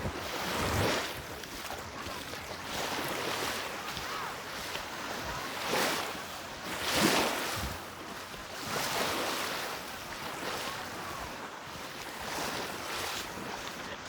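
Small Mediterranean waves washing onto a sandy beach, the surf swelling and falling back every few seconds.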